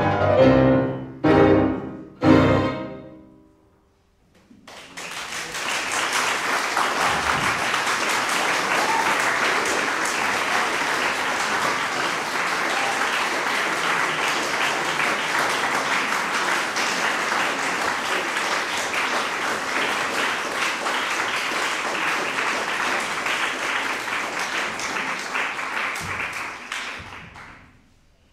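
Closing chords of a violin-and-piano piece, three loud chords with the last ringing away to silence, then an audience applauding for over twenty seconds before dying away near the end.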